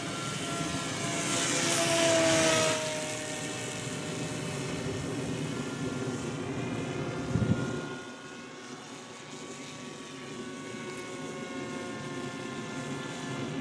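Small electric RC plane in flight: the Bixler 2's motor and propeller whine steadily, the pitch sliding down and up as the throttle changes. It swells louder about two seconds in, and after a short thump at about seven and a half seconds it drops back to a quieter drone.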